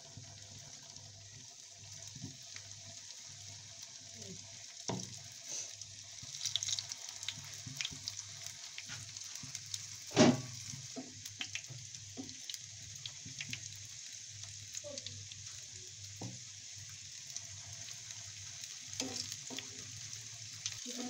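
Square folded egg parathas sizzling in hot oil in a frying pan, a steady hiss, with a few knocks as more pieces are set into the pan; the loudest knock comes about ten seconds in.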